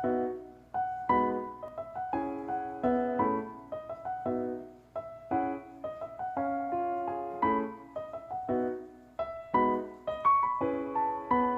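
Piano music: chords and melody notes struck about once or twice a second and left to ring.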